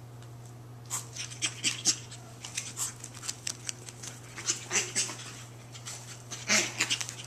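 Two chihuahua puppies playing: quick, irregular clicks and scuffles of small paws and claws on tile, with faint puppy noises, starting about a second in over a steady low hum.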